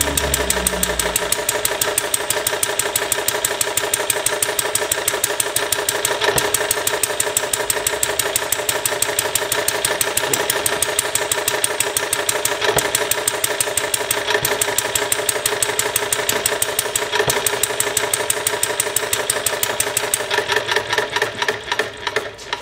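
Small homemade single-cylinder model engine built from plumbing parts, running steadily on its new homemade carburetor with a rapid, even firing beat. Near the end the beats slow, space out and die away as the engine stops.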